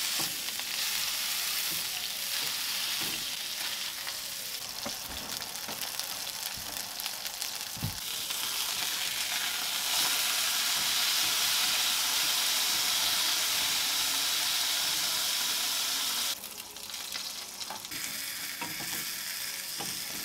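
A ground-beef smash burger sizzling in a very hot stainless-steel frying pan, with a few knocks against the pan. The sizzle steps louder around eight to ten seconds in and drops suddenly at about sixteen seconds.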